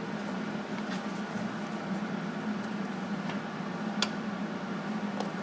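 Flux-core wire-feed welder laying a weld bead on steel: a steady crackling arc with a low buzz and a few sharp pops, the loudest about four seconds in.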